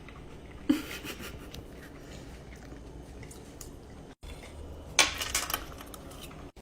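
Someone eating with cutlery, the utensils scraping and clinking on a plate, with a sharp clink just under a second in and a louder clatter about five seconds in.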